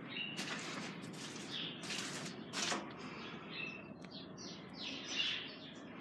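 Small birds chirping in short, scattered calls, with a couple of sharp clicks.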